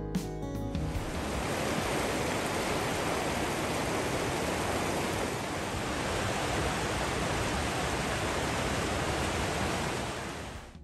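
Lewis Falls and the Lewis River rapids: a steady rush of falling and flowing water. It follows guitar music that ends about a second in, and fades out near the end.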